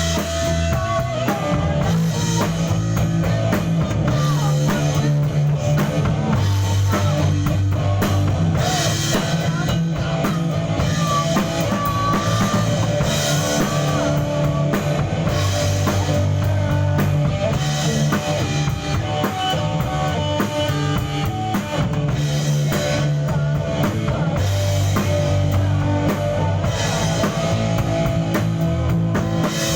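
A rock band playing live in a rehearsal studio: drum kit, electric guitar and bass running together at a steady level.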